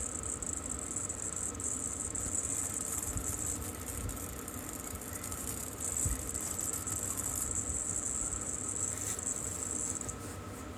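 Electric arc welding on a stacked steel billet of bandsaw blade and pallet strap: a steady high-pitched crackling hiss, interrupted briefly just before the middle and cutting off near the end.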